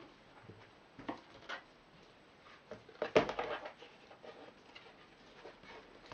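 Cardboard game boards being handled and laid down: a few light taps and slides, with the loudest knock and rustle a little over three seconds in.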